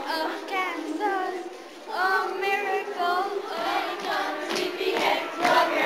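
A group of children singing together as a chorus. The singing dips briefly about a second and a half in, then comes back fuller.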